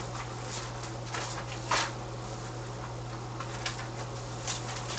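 Scattered soft clicks and rustles from handling things at a table, the loudest a brief rustle a little under two seconds in, over a steady low electrical hum.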